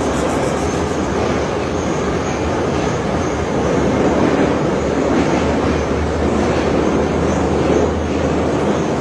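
Steady, loud rumbling noise of something running without pause, with a low hum beneath it and no speech.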